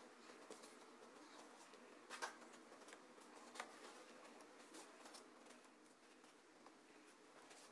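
Near silence with faint rustles and a few soft clicks of a corrugated-cardboard mask being handled, the clearest click about two seconds in and another about a second and a half later.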